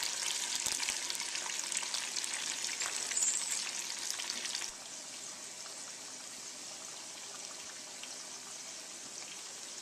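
Sweet potato fries deep frying in a small saucepan of hot oil: a dense, crackling sizzle. A little under halfway through it drops suddenly to a quieter, steadier sizzle of smoked sausage pieces frying in the oil.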